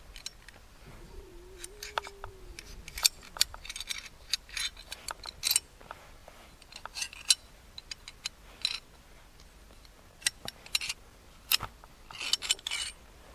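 Steel parts of a TT-33 Tokarev pistol clicking and clinking as the slide, barrel and barrel bushing are taken apart by hand during field stripping, in a long run of irregular sharp clicks.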